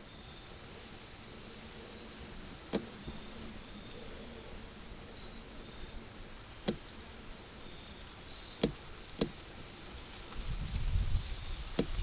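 Insects trilling in a steady, thin, high-pitched drone, with a few sharp single clicks or snaps spaced seconds apart. Over the last second and a half a low, uneven rustling rumble starts up and grows louder.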